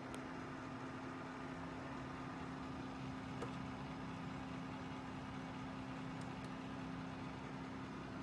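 Steady hum of a running desktop computer, with a few faint mouse clicks as the BIOS menu is worked.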